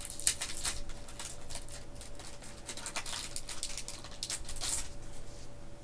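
Foil wrapper of a Pokémon booster pack being handled and torn open, with a run of quick crackles and rustles.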